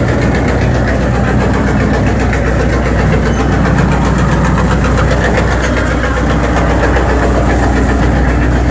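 A bumboat's diesel engine running steadily: a loud, even, low hum with no change in pitch.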